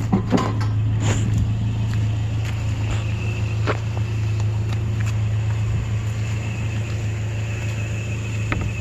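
Vehicle engine and road noise heard from inside the cab while driving: a steady low hum, with a few small clicks and knocks in the first second and a half.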